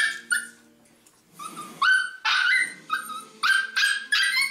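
Six-week-old Samoyed puppy yipping and barking at the pen gate in a quick run of short, high-pitched cries, each dropping slightly in pitch. The cries start again after a pause of about a second near the start.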